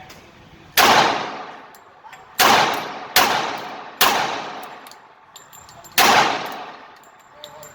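Five gunshots at an indoor range, unevenly spaced, each followed by a long echoing decay off the range walls.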